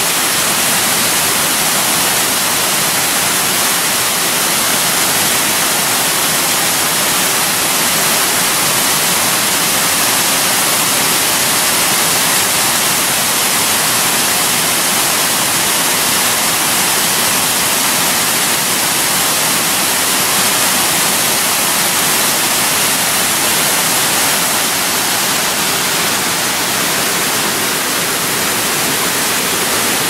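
Tiered waterfall cascading over rock ledges and splashing into a pool below: a loud, steady rush of falling water.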